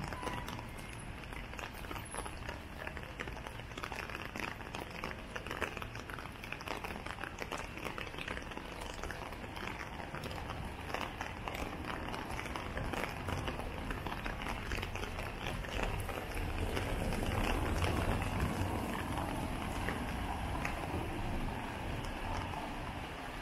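Steady rain falling on a city street, with many small drop impacts. About two-thirds of the way in, the hiss of a vehicle's tyres on the wet road swells up with a low rumble, then fades.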